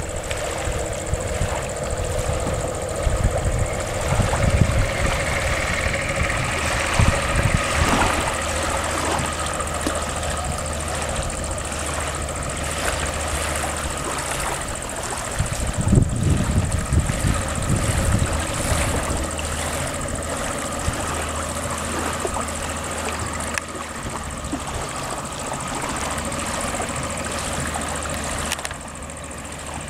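A small boat's outboard motor running steadily, with louder low rumbles around four and sixteen seconds in.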